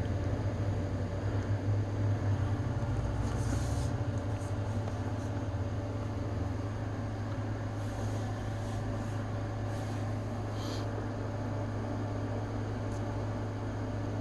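Steady low mechanical hum, with a few faint clicks of hard plastic action-figure parts being handled.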